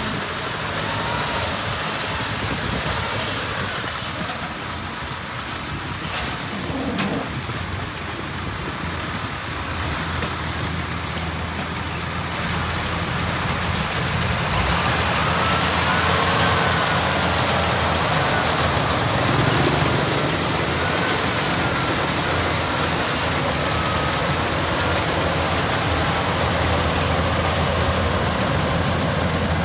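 Harvest machinery running steadily: the engine of a tracked rice-hauling crawler and a Kubota DC-105X combine harvester. The sound gets louder about halfway through, with a faint wavering whine on top.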